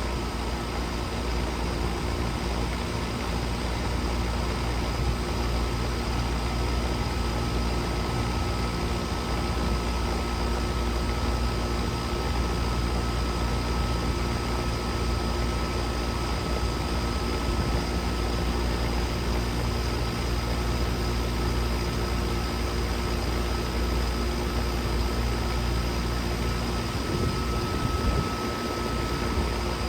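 Outdoor condensing unit of an old R-22 central air conditioner running steadily: a compressor hum under the even whoosh of the condenser fan, with a few constant tones.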